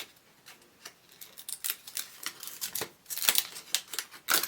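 Toy packaging and paper inserts being handled: a run of short clicks and rustles that grows busier near the end.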